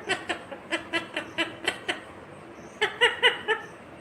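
Indian ringneck parrot calling in quick runs of short, clipped pitched notes: about ten in the first two seconds, then a shorter run of about five around three seconds in.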